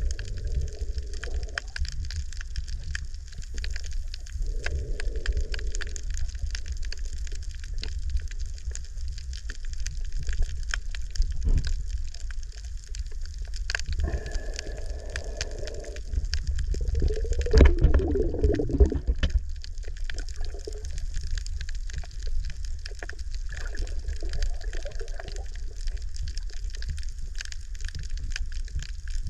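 Underwater ambience in shallow sea water: a steady low rumble of moving water with constant fine crackling clicks, and several muffled swells a second or two long, the strongest about two thirds of the way through.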